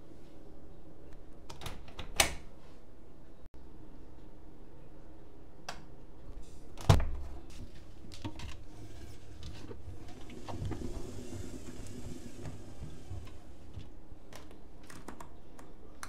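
Candy GrandÓ GO145 washing machine after the end of its cycle, standing with a low steady hum: scattered sharp clicks, a loud thump about seven seconds in, and a quick run of small clicks near the end as the programme dial is turned by hand.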